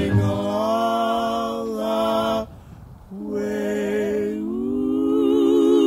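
Sung music: a voice holds two long notes with vibrato and no clear words, with a short break about two and a half seconds in.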